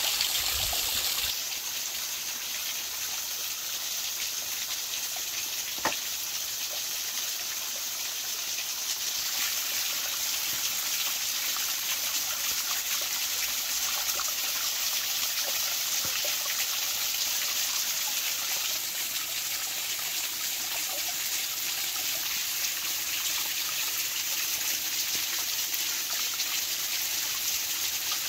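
A small waterfall splashing steadily down over layered rock, with a single sharp click about six seconds in.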